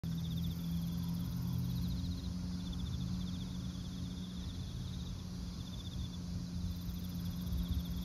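A chorus of crickets chirping in rapid pulsed trills that come and go in bouts, one voice much higher-pitched than the rest, over a steady low hum.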